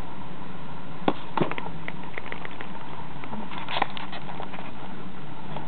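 Kittens scrambling through paper cat litter and over a cardboard box: scattered light clicks and rustles of the litter pellets and their claws, busiest between about one and two and a half seconds in, with a sharper cluster near four seconds. A steady hum runs underneath.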